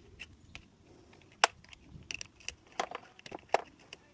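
Irregular sharp clicks and taps of hand tools against a Kärcher K-series pressure washer's body as its bolts are undone, with one loud click a little before halfway and a run of clicks later on.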